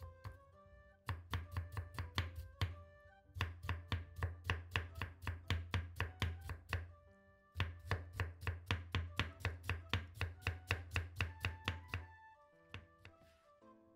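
Kitchen knife cutting daikon radish into thin julienne strips on a wooden cutting board: quick, even knife strokes, about five a second, in three runs with short pauses between, stopping about two seconds before the end. Soft background music plays underneath.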